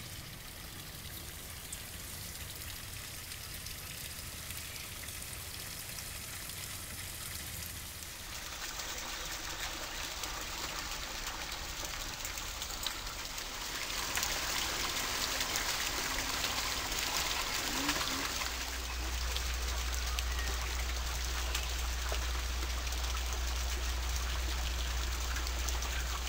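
Pond waterfall splashing steadily, growing louder in two steps as it draws closer. A low steady rumble joins in about two-thirds of the way through.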